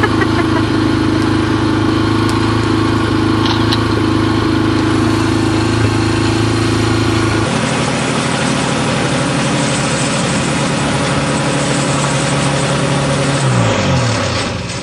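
A dirt bike's engine idles steadily. About seven and a half seconds in, the sound changes abruptly to a powered ultralight trike's engine running, which slows with a falling pitch shortly before the end.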